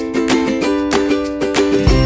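Background music: a ukulele-like plucked-string tune with quick, even notes, joined by a deep bass near the end.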